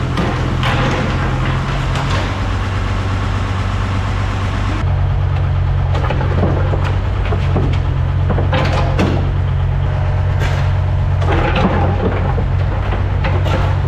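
Engine of a small construction machine running steadily, with repeated scraping and clattering of stone over it. The sound changes abruptly about five seconds in.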